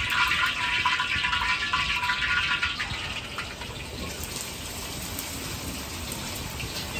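Steady rushing, water-like noise from a commercial wok range, with a whistling tone over it for about the first three seconds, then settling to a softer steady hiss.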